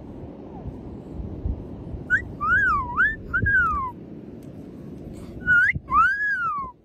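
White pet parrot whistling loudly in two bursts of swooping notes that rise and fall, about two seconds in and again near the end.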